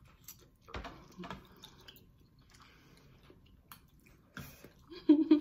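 Two people eating noodles: a few short slurping and chewing mouth sounds. A brief hum of voice comes near the end.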